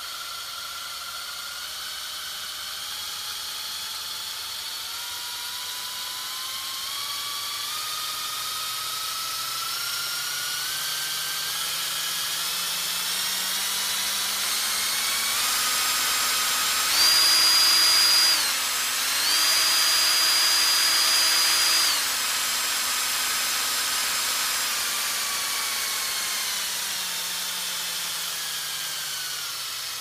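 Medium-size power drill running, its whine climbing slowly in small steps up to top speed about two-thirds of the way through. It stays loudest for a few seconds with one short dip, then falls back in steps as the drill slows down.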